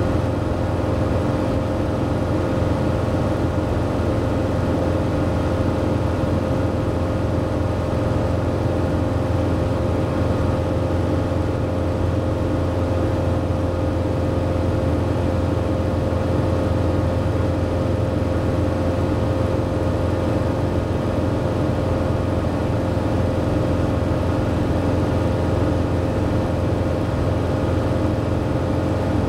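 Robin DR400 light aircraft's piston engine and propeller droning steadily in flight, heard from inside the cockpit, with a constant hum running through the drone.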